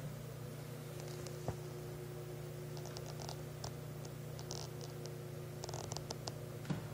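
A steady low hum with a faint steady higher tone over it. A single click comes about a second and a half in, then scattered light clicks and ticks from about halfway through.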